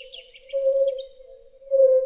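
Nature sounds: a mellow, pure hooting note near 500 Hz, swelling and repeating about once a second, with a bird's rapid high trill over it that stops about a second in.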